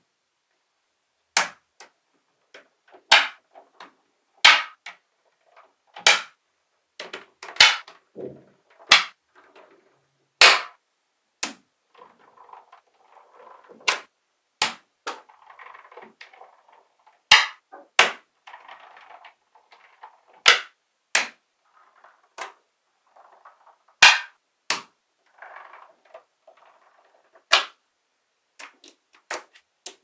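Small magnetic balls snapping together in sharp clicks at irregular intervals, about one a second, with soft rattling of balls shifting and rolling between the clicks from about 12 seconds in.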